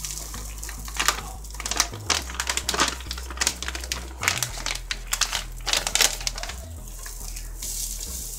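A plastic bag crinkling as dry vegan pulled-pork shreds are shaken out of it into a cast-iron skillet: irregular rustles and crackles, busiest in the middle of the pour.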